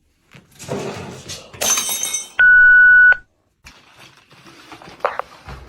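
A crash with a shattering rush of noise, followed at once by a loud, steady electronic beep lasting under a second.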